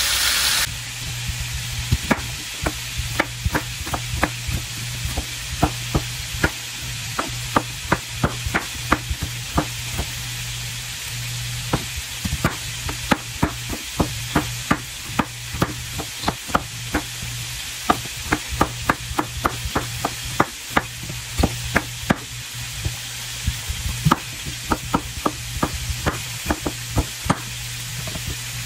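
Chef's knife chopping an onion on a wooden cutting board: a run of sharp knocks, a few a second with short pauses, over a steady low hum. At the very start, a brief loud sizzle of short ribs searing in hot oil, cut off abruptly.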